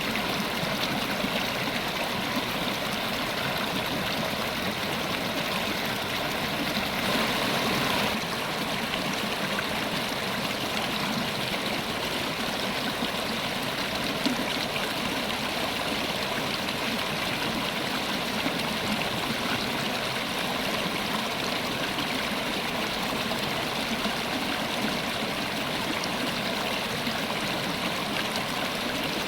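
River water flowing steadily, an even rushing noise that swells briefly about seven seconds in.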